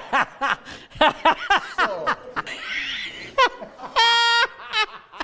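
A man laughing hard in quick repeated bursts that fall in pitch, with a breathy wheezing stretch in the middle and a high held squeal about four seconds in.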